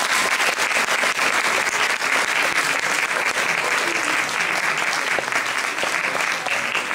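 An audience of several dozen people clapping, continuous applause.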